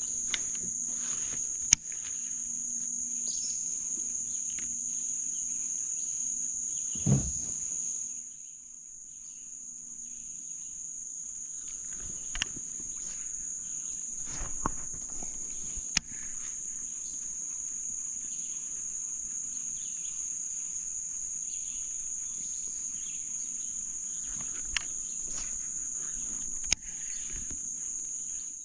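Steady high-pitched insect chorus, a continuous buzz that runs without a break, with scattered sharp clicks and knocks and one low thump about seven seconds in.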